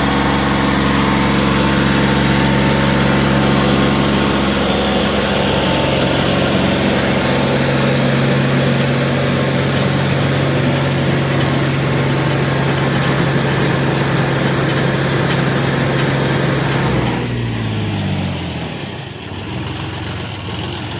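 Tractor or backhoe diesel engine running steadily at raised revs; near the end the revs fall off quickly and it settles to a lower, rougher running.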